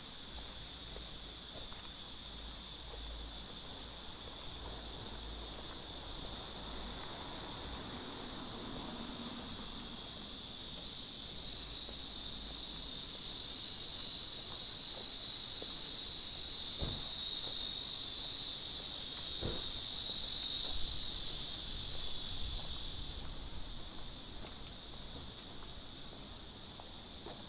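Insect chorus, a continuous high buzz that swells over several seconds past the middle and then fades back down, with a few faint footsteps.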